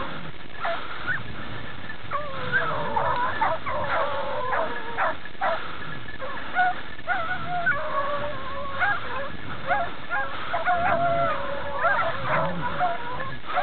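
A pack of beagles baying, many voices overlapping in short yelps and longer drawn-out howls: hounds giving tongue as they run a hare's scent.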